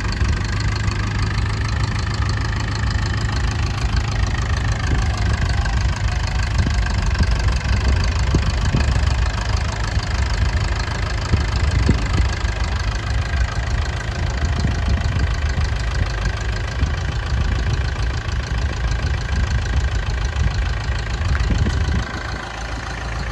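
Massey Ferguson 275 tractor's diesel engine running steadily as the tractor climbs the ramps onto a lowboy trailer, its low rumble dropping off a little near the end.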